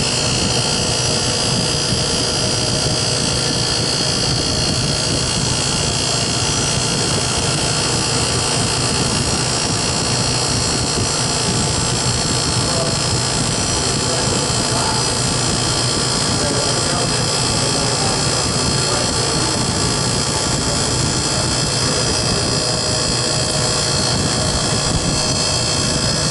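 Beer bottle cooler's condensing unit running: the condenser fan blowing air over the coil, with the new 1/2 hp R-134a hermetic compressor running beneath it, a steady rush with a constant hum. It runs normally: the new compressor draws 8.8 A against a rated 9.5 A.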